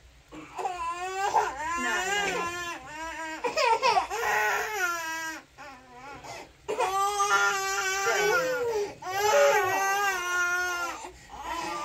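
A baby crying in long, high-pitched cries, breaking off briefly about five and a half seconds in and again near eleven seconds.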